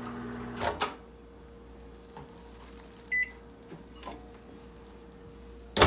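Microwave oven humming, then cutting off with a couple of clicks under a second in as it is stopped and opened. A single short high beep comes about three seconds in, and a sharp knock near the end.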